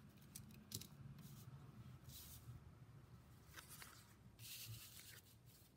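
Faint rustling of paper: a stack of square origami sheets slid onto a table, in a few soft brushes, the longest about three-quarters of the way through.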